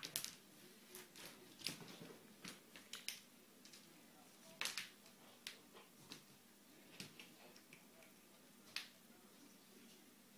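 Irregular light clicks and taps of a cat playing with a plastic ball toy on a tile floor, thinning out and stopping near the end.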